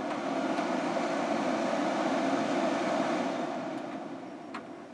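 Desktop PC's cooling fans spinning up at power-on: a steady rush of air that swells for a couple of seconds, then slows and quietens from about three seconds in, with a small click near the end. It is the Fujitsu Siemens Esprimo P2540 starting up on its power supply after the bad capacitor was replaced.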